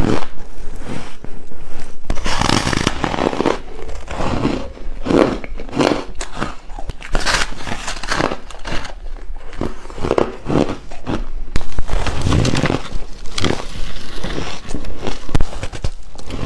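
Close-miked biting and chewing of soft, powdery coloured ice: a string of irregular crunching bites.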